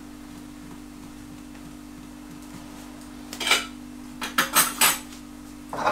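Kitchenware clinking and knocking as it is handled on a counter: one sharp clink about three and a half seconds in, then a quick cluster of clinks and knocks a second later, over a steady low hum.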